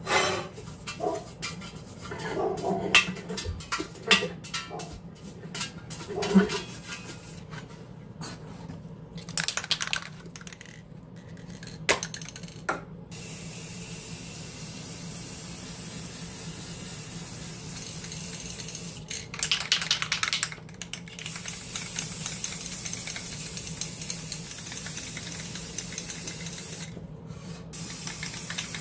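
Scattered light metallic clinks and knocks for the first dozen seconds, then a steady hiss that swells briefly and grows stronger for the last several seconds.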